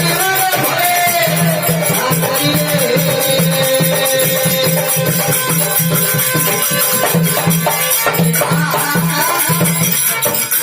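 Instrumental passage of Rajasthani folk devotional bhajan music: a held, wavering melody line over a steady low drum pulse and continuous jingling, rattling percussion.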